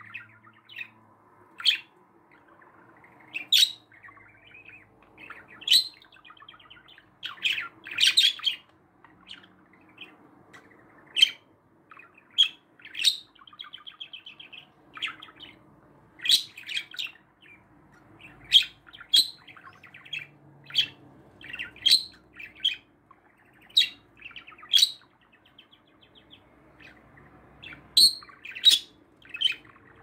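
Budgerigars chirping: sharp chirps every second or two over quieter warbling chatter, with a short rapid trill about halfway through.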